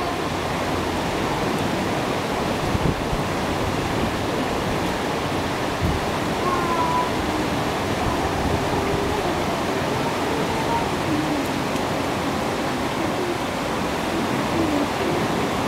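Water rushing steadily as it swirls over the floor of a gravitational water vortex power plant's rotation basin.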